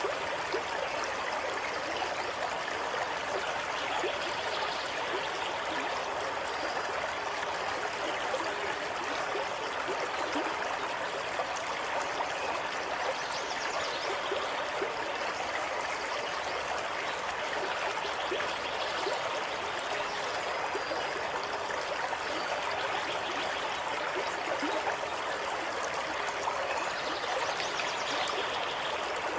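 Water of a stream running steadily over stones: a constant rushing with small gurgles and trickles through it.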